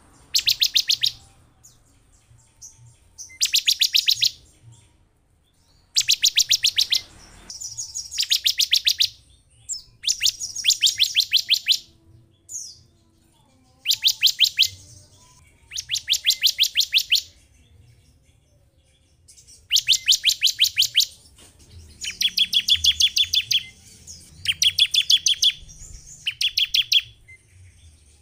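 Ciblek (prinia) calling in repeated fast trills of sharp, evenly spaced notes. Each trill lasts about a second, with one coming roughly every two seconds. This is a lure call used to provoke other ciblek into calling.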